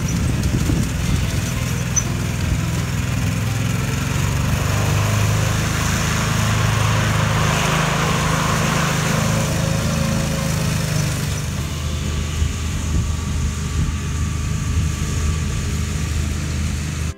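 John Deere zero-turn riding mower running steadily under way, its engine a continuous low drone. A rushing noise swells and fades in the middle.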